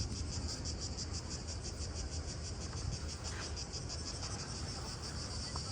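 Cicadas singing in a steady chorus: a high, rapidly pulsing buzz that goes on without a break, over a low rumble.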